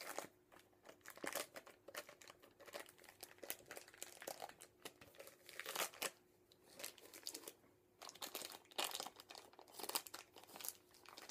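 Clear plastic wrapping crinkling as it is worked off a rolled-up paper poster, in irregular crackles with short lulls about six and eight seconds in.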